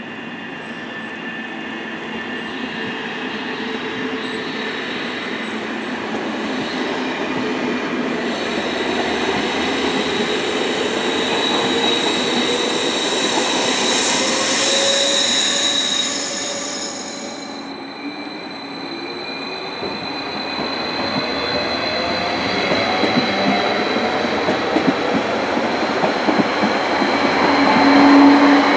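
SBB double-deck electric train accelerating, its motor whine rising in pitch with a high wheel squeal. After a dip a second electric train draws near, its rumble and wheel clicks over the rail joints growing louder and peaking near the end.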